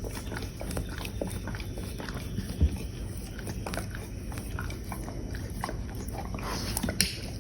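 A dog licking and chewing peanut butter out of a Kong toy: small wet clicks and smacks, with one louder knock about two and a half seconds in.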